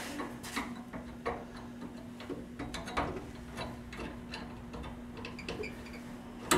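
Irregular metallic clicks and ticks, roughly one or two a second, as the threaded parking-brake clevis on a 1949 Chevy 3100 truck is turned in with a wrench to shorten the cable and take up slack; one sharp click comes near the end.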